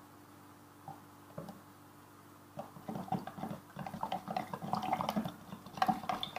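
Pandan paste being stirred into water with a spoon: a couple of faint knocks, then from about two and a half seconds in an irregular run of liquid swishing and splashing in the container.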